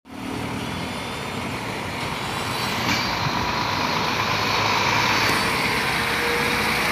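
Helicopter running on the ground with its rotor turning, a steady engine and rotor noise with a faint whine, and a truck engine passing close by, getting a little louder from about the middle.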